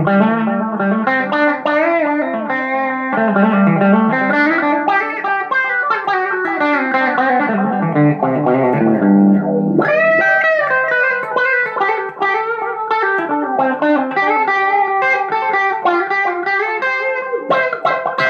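Electric guitar played through a Vox 20-watt tube-and-digital hybrid amplifier on its auto-wah channel: a continuous run of single notes with bends and sweeping tone.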